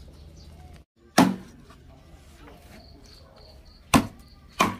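Large kitchen knife chopping through boiled chicken onto a wooden chopping block: three sharp chops, one about a second in and two close together near the end.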